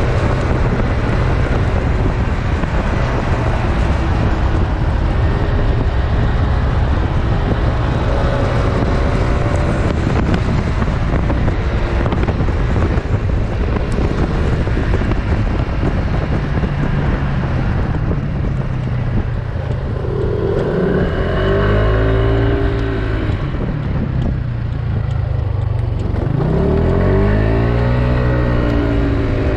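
Wind rushing over the microphone of a PGO Tigra 150 scooter riding at speed, with its single-cylinder engine running underneath. About two-thirds through, the wind eases and the engine note falls and rises a few times as the scooter slows and picks up speed again.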